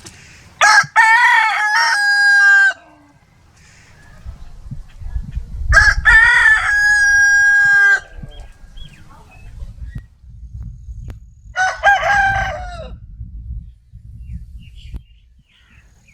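Rooster crowing three times, cock-a-doodle-doo; the first two crows end in a long held note, the third is shorter. A low rumble runs under the middle crow and after it.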